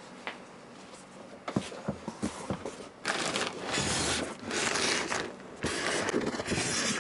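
A few light knocks, then from about three seconds in loud scraping and rustling of cardboard and styrofoam packing as an electric scooter is pulled up out of its box.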